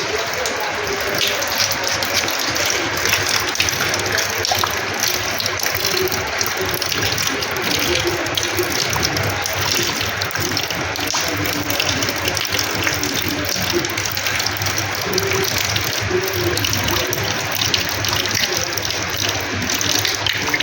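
Heavy rain and water splashing steadily onto a terrace floor, a dense, even patter and gush of water.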